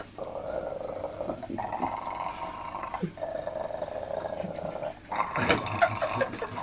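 A man imitating an animal with his voice: three long held sounds of a second or more each, with short breaks between them, then a choppier, more broken stretch near the end.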